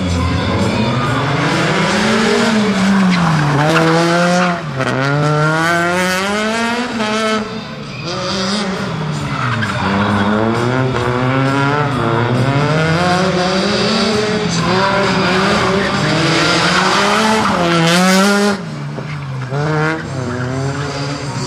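Rally car engine revving hard and dropping back over and over, its pitch climbing and falling every few seconds, with tyre noise as the car is thrown around in a demonstration run.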